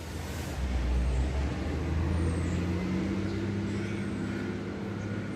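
Garbage truck engine running, swelling about a second in and then slowly easing off.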